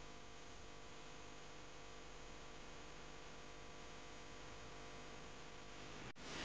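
Faint, steady electrical hum with a light hiss. About six seconds in it drops out briefly, and a louder hiss follows.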